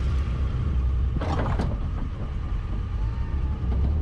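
Vehicle engine running with a steady low rumble, with a brief rattling burst about a second and a half in.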